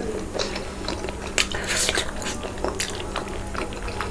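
Close-miked eating sounds: chewing pork curry with rice, with wet mouth clicks and smacks scattered irregularly and a few short, louder bursts about a second and a half in.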